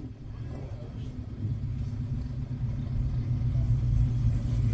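First-generation Chevrolet Camaro's engine running with a low, steady rumble at rolling speed, growing louder as the car approaches.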